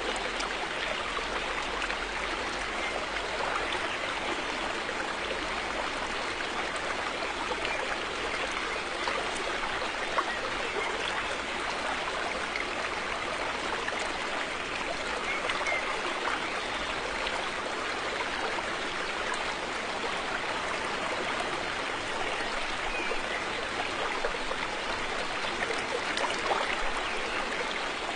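River water flowing steadily over stones, a continuous rushing babble with small splashes and trickles through it.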